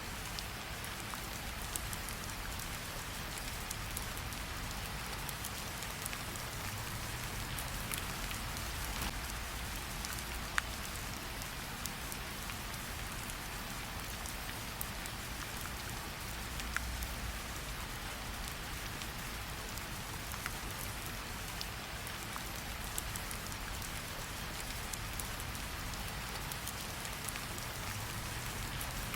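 Steady rain falling, an even hiss, with scattered sharp pops from a crackling campfire mixed in.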